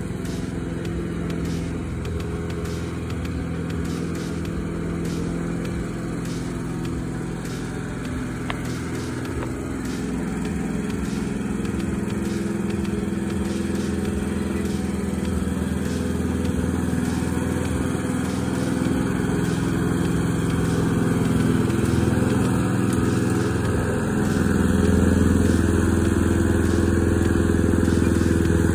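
Mountfield SP535 HW self-propelled petrol lawn mower running steadily while cutting grass. It grows gradually louder over the last half as it comes closer.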